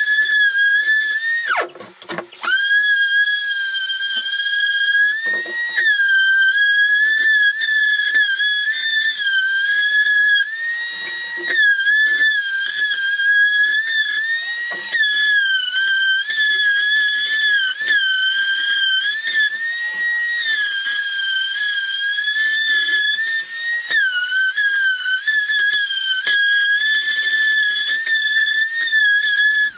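Electric orbital sander running on plywood and dried joint compound, a steady high whine that dips slightly in pitch now and then. It cuts out briefly about two seconds in.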